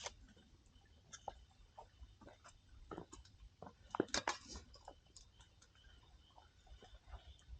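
Wood campfire crackling: scattered small pops, with a quick run of louder snaps about four seconds in.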